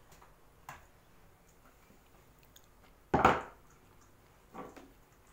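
A dog handling and gnawing a beef bone on a wooden floor: a few separate knocks and crunches of bone, the loudest about three seconds in, with quiet between.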